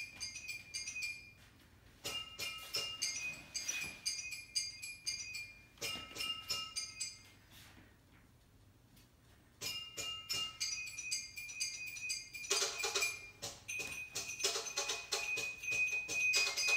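Recorded dance music with clinking, glass-like percussion in short rhythmic phrases; it drops out briefly twice, then comes back fuller about twelve seconds in, with a steady high ringing tone.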